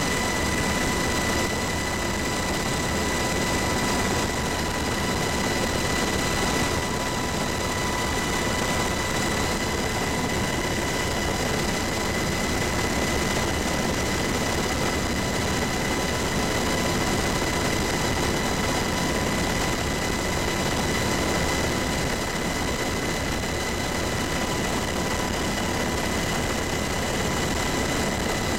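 Helicopter in steady cruising flight: a constant engine and rotor noise with a high, steady whine over it.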